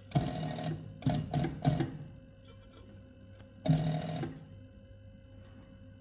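Leather skiving machine (Fortuna type) running in short bursts as it thins the edges of soft faux leather: one longer run at the start, three quick runs about a second in, and another a little before the four-second mark.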